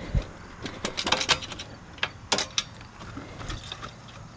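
A low thump near the start, then scattered clicks and rattles from a dirt bike being handled with its engine off, its levers and loose parts knocking as it is checked over for damage after a crash.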